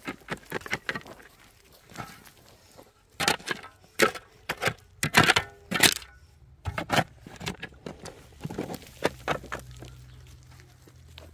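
A metal shovel digging into dry, stony soil: irregular scrapes and thuds as the blade bites into the ground and grinds on stones. The strokes are loudest and come closest together about three to six seconds in.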